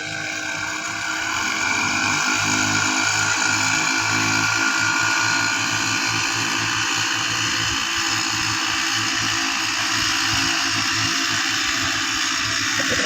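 Small engine running steadily under load, growing louder about a second and a half in and holding there.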